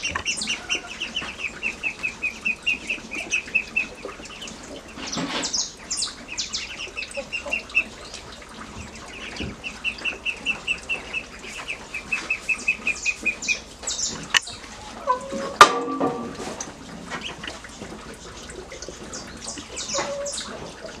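Young ducklings peeping in long runs of quick, even cheeps, about four a second, with higher chirps in between. A single sharp knock comes a little past the middle.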